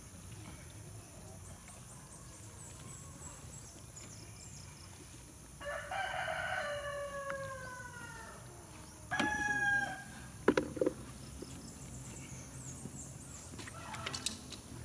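A rooster crowing once, a long call of about three seconds that falls slightly in pitch, followed a few seconds later by a shorter bird call. Just after it come two sharp clicks, the loudest sounds here.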